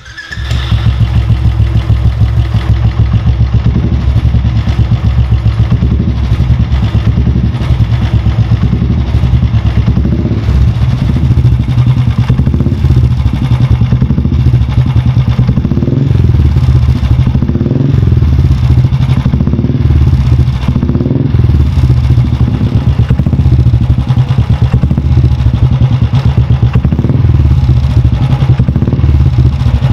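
Royal Enfield Classic's single-cylinder engine idling through a Cannon straight-type aftermarket exhaust with a steady, deep thump, rising a little a few times around the middle as the throttle is blipped.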